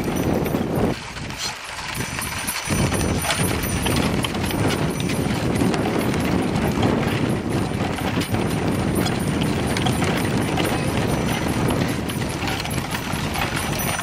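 Wind buffeting the microphone, a dense low rumble that eases for a second or two about a second in, over light rapid knocking from a wind-driven wooden whirligig's turning mechanism.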